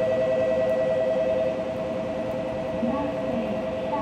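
Station platform departure bell ringing: a steady electronic two-tone ring that signals a Shinkansen train is about to leave. It goes on without a break and drops a little in level about a second and a half in.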